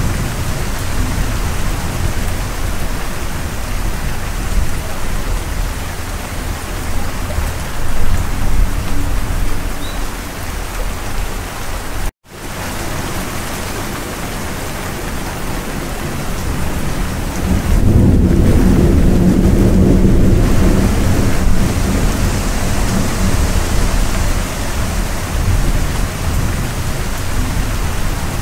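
Steady heavy rain with a low rumble of thunder swelling about eighteen seconds in. The sound drops out for an instant about twelve seconds in.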